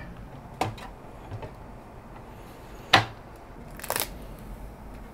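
A few sharp clicks and knocks from handling a small-form-factor PC case's side panel. The loudest is a sharp click about three seconds in, and a brief rattle follows about a second later.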